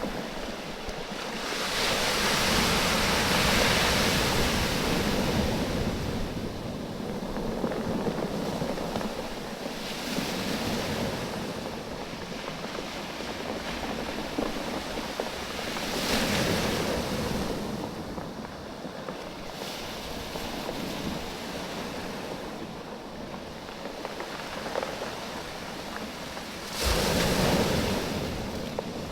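Waves washing in and drawing back over a bank of rounded, oval beach stones, the stones rattling and clacking against one another as the water ebbs. The surf swells several times; the loudest surge comes in suddenly near the end.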